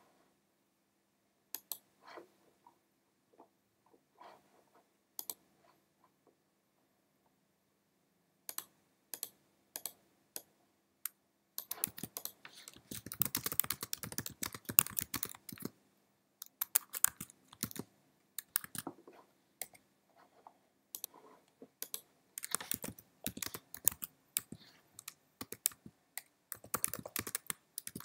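Typing on a computer keyboard in quick runs of keystrokes broken by short pauses, after a few scattered single clicks in the first several seconds.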